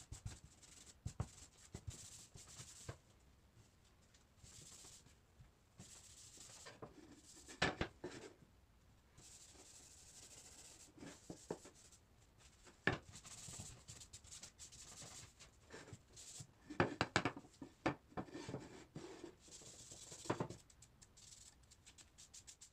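Cloth pad rubbing Briwax dark oak wax into a wooden board: a faint scrubbing and scratching, broken by several short knocks as the board is handled on the bench.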